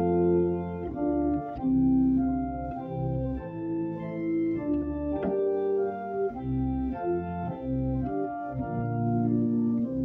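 Church organ playing a hymn tune in slow, sustained chords, the harmony changing every second or so.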